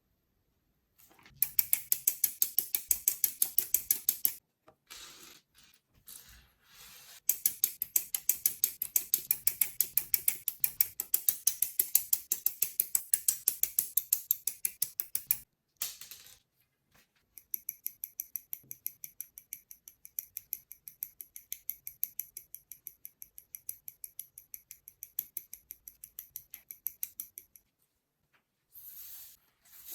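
Rapid, evenly spaced ratcheting clicks in three runs, stopping and starting again. The last run has a brighter, more ringing click.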